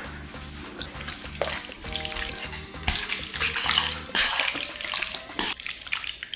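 Chopsticks stirring and lifting sauce-coated noodles, small octopus and beef large intestine in a frying pan, giving a wet noise that is strongest in the middle and stops abruptly about five and a half seconds in. Quiet background music plays underneath.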